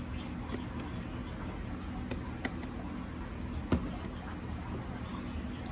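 Quiet room tone with a few faint clicks and a soft knock about three and a half seconds in, as a small homemade Bluetooth speaker in a clear plastic box is handled.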